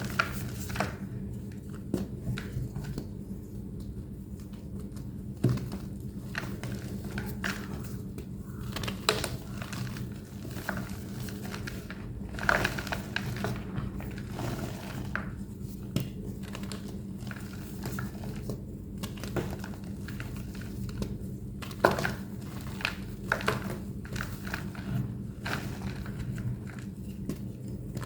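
A thick, plain white homemade gym chalk block being squeezed and crushed by hand, giving irregular crunching, crackling and squeaking, with a sharper crack every few seconds.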